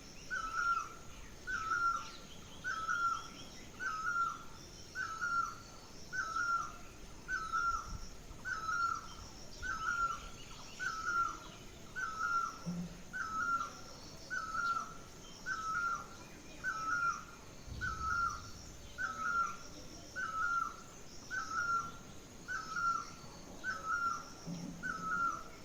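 Birds calling: one bird repeats the same short call at a steady pace, about once a second, over fainter chirps from other birds.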